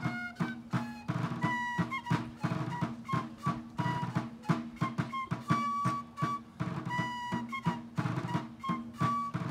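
Civil War–style field music: a rope-tensioned field drum beating a steady marching rhythm under a high wind instrument playing a quick tune of short notes.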